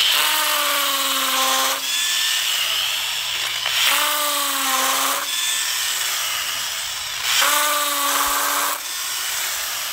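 Electric drill in a drill stand boring into a concrete floor with a masonry bit, running continuously. A pitched whine rises out of the grinding noise three times, each for a second or so.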